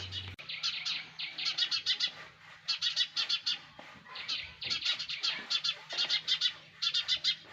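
Sparrows chirping: quick runs of short, high chirps, repeated again and again with brief gaps between runs.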